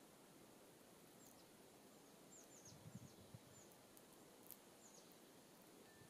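Small songbirds calling faintly: a scattered series of short, high, thin notes, each falling in pitch, with a few soft low thumps near the middle.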